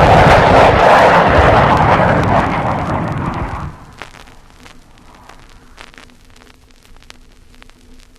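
A single large explosion, loud from the start and dying away over about four seconds, played from an old vinyl LP recording of US Air Force weapons. After it, record surface noise with scattered clicks and pops.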